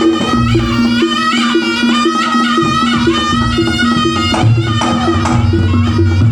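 Javanese gamelan ensemble playing a langgam with kendang drumming: a wavering melody over steady, evenly repeating low strokes.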